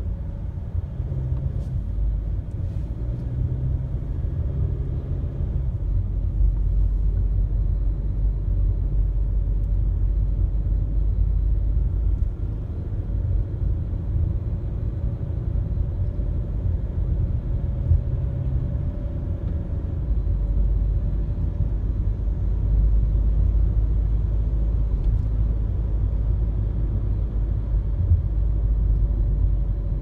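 Inside a moving car: a steady low rumble of tyre and engine noise.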